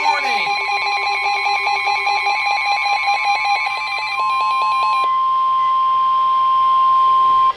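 Weather-radio alert signalling: several alert tones overlapping with fast, stuttering SAME data bursts. About four seconds in these give way to the single steady, high NOAA Weather Radio alert tone (about 1050 Hz), which cuts off abruptly. This is the signal that a new warning message is about to be broadcast.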